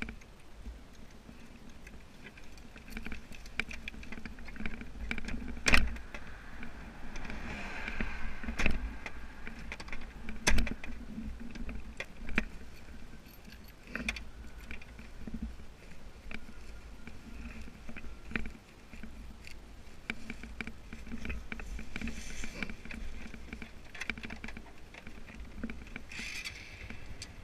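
Delivery motorbike running in traffic, with a steady hum, a low rumble of wind on the microphone, and rattling and sharp knocks from the bike's mountings, loudest at about six and ten seconds in.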